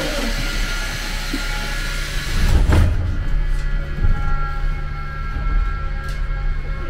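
Budapest M1 Millennium Underground train running between stations: a steady low rumble with faint high tones, swelling into a heavier rumble about two and a half seconds in, with a few short knocks.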